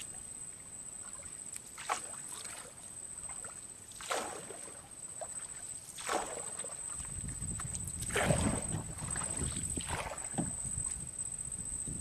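A wet cast net being hauled out of a river into a small boat, with water splashing and streaming off the mesh in a short splash about every two seconds as each armful comes up.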